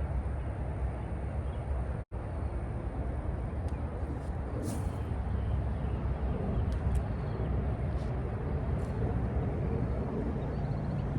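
Steady low outdoor rumble with a faint high steady whine over it and a few short ticks in the middle. The sound cuts out completely for an instant about two seconds in.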